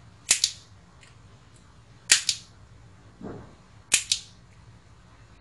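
Side cutters snipping excess leads off a circuit board: three sharp snaps about two seconds apart, each a quick double click, with a duller knock in between.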